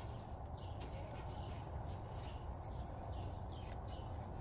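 Faint steady low background hum with small birds chirping briefly, about once a second.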